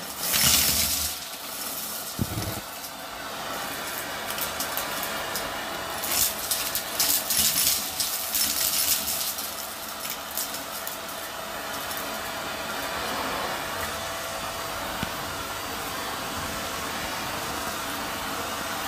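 Vacuum cleaner running through its hose, sucking up small hard debris (plastic beads, pushpins, gritty crystals) from carpet. The debris clatters and crunches up the hose about a second in and again from about six to nine seconds in, over the steady suction drone with a faint whine.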